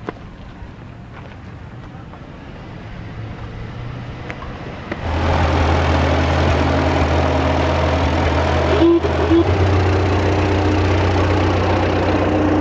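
Vintage Farmall tractor engine running steadily as the tractor drives past, coming in abruptly and loud about five seconds in after a quieter stretch of faint outdoor background noise.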